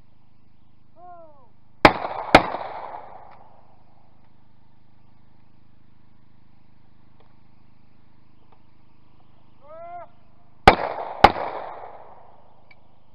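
Shotgun fired twice in quick succession, the two shots about half a second apart, then again about nine seconds later, each shot trailing off in a short echo. Each pair follows a short call, the signal for the clay targets to be released.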